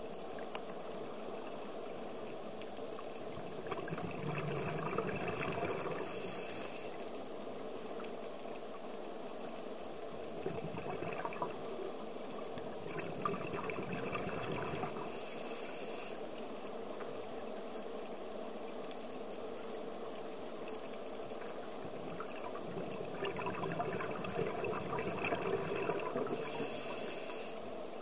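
Scuba diver's regulator breathing underwater, heard through a camera housing: three breaths about ten seconds apart, each a gurgling rush of exhaled bubbles and a short hiss of inhaled air, over a steady muffled underwater background.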